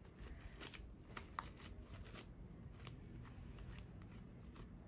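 Faint sticky clicks and crackles of fluffy slime, made from glue, shaving foam and boric acid, being stretched and pulled apart between the hands.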